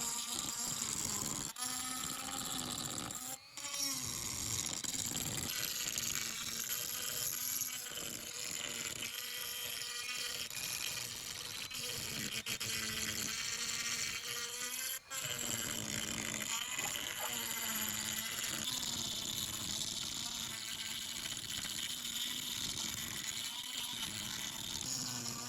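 Steady buzzing of a small motor, broken off briefly three times.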